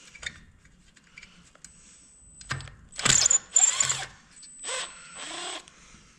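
Power drill run in two short bursts of about a second each, with a thin high whine and the motor winding down in between, after a single knock about two and a half seconds in.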